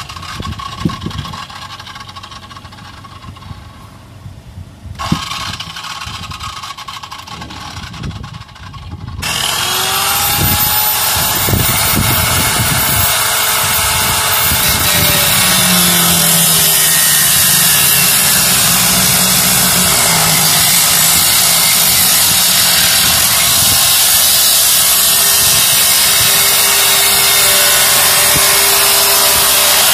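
A corded handheld power tool spins up about nine seconds in, then runs loud and steady as it cuts into the Land Rover Discovery's metal bodywork. Before it starts there is only wind noise and a few knocks.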